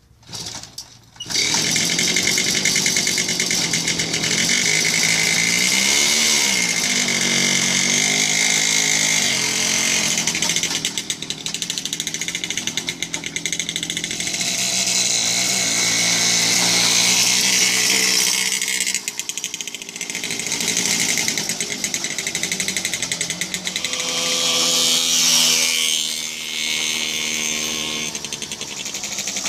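Romet two-stroke moped engine kick-started, catching about a second in, then running with a buzzy note that rises and falls with the throttle while towing a small trailer. It revs up near the end as the moped pulls away.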